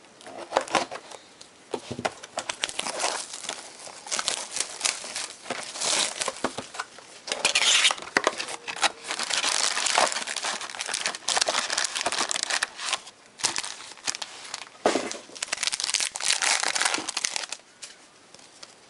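Plastic wrapping crinkling, crackling and tearing as a sealed box of 2012 Certified football cards is stripped and its card packs are ripped open. The crackle is dense and busy throughout, then thins out near the end.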